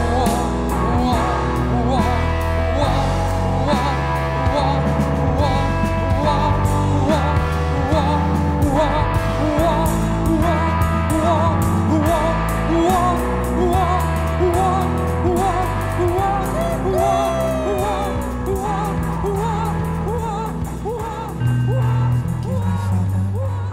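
A rock band playing loudly: drums, double bass and electric guitar come in together at the start. Over them a high male countertenor voice sings wavering, ornamented lines.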